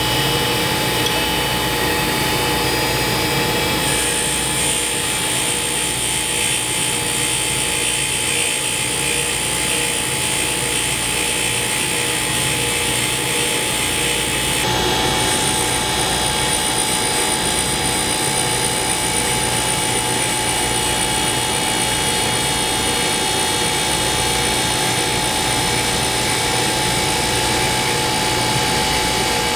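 Tool and cutter grinder running, its abrasive wheel grinding down a spinning rod of semi-fired alumina bisque ceramic, with a vacuum dust collector drawing off the dust. A steady mechanical hum and hiss, joined about four seconds in by a high whine.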